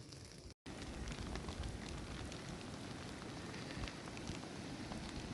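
Steady rain falling, with scattered light patter of drops, starting after a brief cut-out about half a second in.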